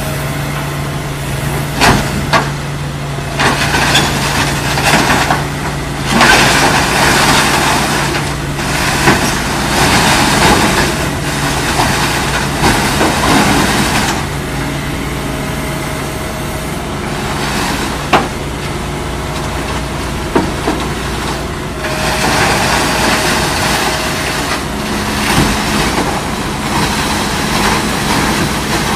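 Hitachi crawler excavator's diesel engine running, louder for long stretches as it works under load driving onto a lowboy trailer, with a few sharp knocks.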